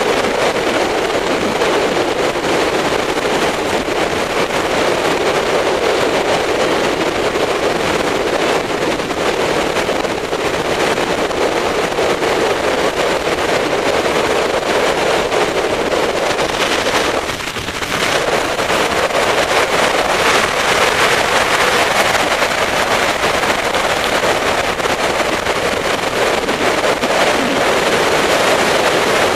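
Motorcycle ridden at speed on a road: steady engine and wind rush on the microphone, dipping briefly about two-thirds of the way through.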